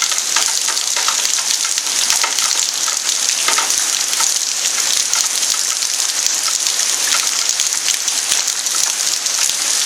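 Torrential rain coming down in buckets, a dense steady hiss of drops pattering on the ground.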